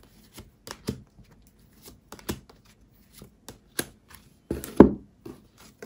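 Tarot cards being handled and drawn from the deck: irregular light clicks and snaps of card against card, with a louder slap near the end.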